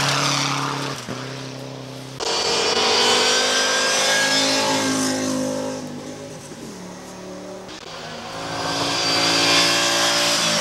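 Rally cars at full throttle passing on a gravel stage. Each engine note rises as the car approaches and drops as it goes by. The sound changes abruptly about two seconds in, and a second car comes through loudly near the end.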